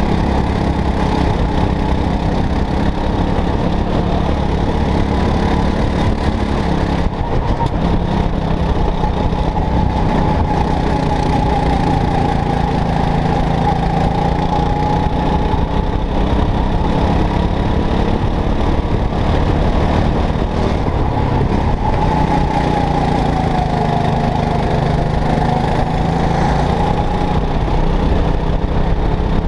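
Go-kart engine running hard under race throttle, heard from on board the kart, its pitch dropping and climbing as the driver lifts and accelerates through the corners. A brief lift about a quarter of the way in.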